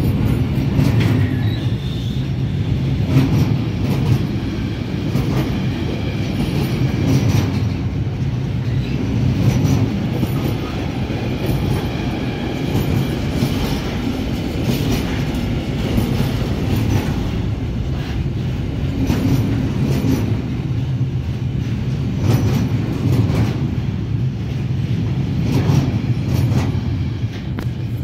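Container freight wagons rolling past at close range: a steady low rumble of wheels on rails, with repeated clicks as the wheels pass over rail joints.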